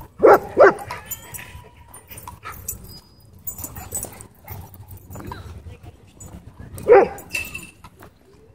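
A dog barking: two quick barks right at the start, then a single bark about seven seconds in, with faint rustling and footstep noise between.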